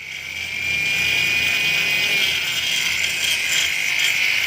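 High-speed rotary grinder running: it comes up to speed in the first second, then holds a steady high whine that dips slightly in pitch now and then.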